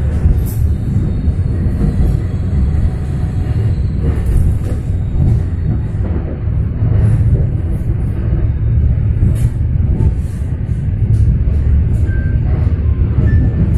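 Steady low rumble of a moving passenger train heard from inside the coach, with scattered clicks and knocks from the wheels and couplings as it rolls along.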